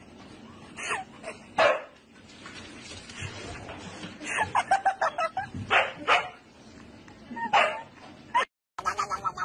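Siberian husky giving short yips and barks, with a quick run of them about four to five seconds in. After a brief cut near the end, a rapid series of pitched cries begins.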